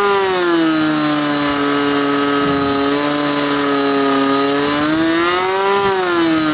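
Small model-airplane engine of a SIG Kadet LT-40 running fast and hot during its break-in runs, a steady high buzz. Its pitch drops back in the first second, then swells up and falls again about five seconds in.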